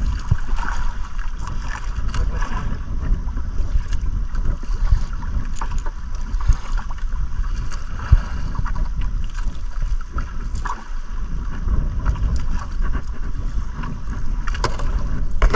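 Wind buffeting the microphone over water washing around a small outrigger boat's hull, with a few light clicks and knocks from handling.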